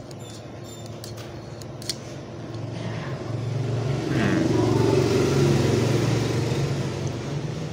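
A few light clicks of the grafting shears being handled in the first couple of seconds. Then a motor vehicle's engine swells up, is loudest around the middle, and slowly fades as it passes.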